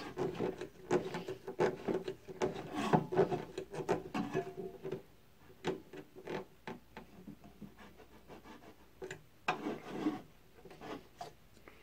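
A wooden 2x4 block being handled and slid on a band saw's metal table, with cloth rubbing close by. Scattered short rubs, scrapes and light knocks come busiest in the first few seconds, thin out, then pick up again briefly near the end.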